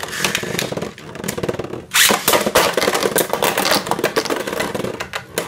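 Beyblade Burst spinning tops rattling and clacking against each other and the plastic walls of a B-09 stadium, with a loud hit about two seconds in.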